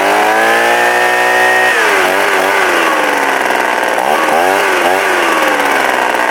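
Ryobi two-stroke jet fan leaf blower engine, freshly started on half choke, revving up high for about two seconds, then dropping back, blipped twice and sinking slowly toward idle.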